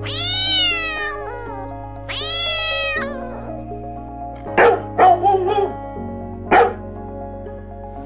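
A cat meowing twice in long, drawn-out calls, then a few short dog barks a little past halfway, over background music.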